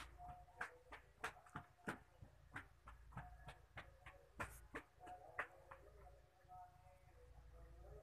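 Metal pen nib scratching and ticking on lined paper as cursive letters are written, in short irregular strokes a few times a second, over a faint low hum.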